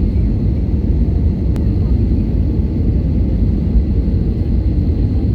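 Jet engines of an Airbus A320 airliner, heard as a steady low rumble that neither rises nor falls.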